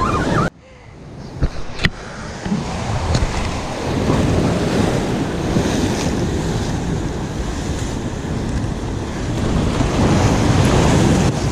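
Surf washing and breaking against the rocks of a jetty, with wind buffeting the microphone. A sudden drop in level just after the start builds back up, and two sharp clicks come about one and a half and two seconds in.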